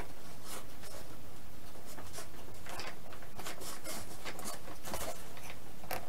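Small clicks, taps and rubbing from hands working the rudder and its pushrod linkage on a foam RC airplane. The clicks come irregularly and grow busier after the first couple of seconds.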